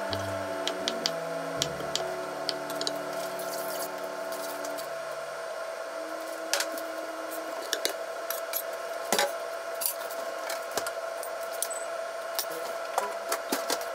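Kitchen knife tapping on a wooden cutting board while cubing salad chicken, then scattered clinks of utensils and a measuring spoon against an enamel bowl.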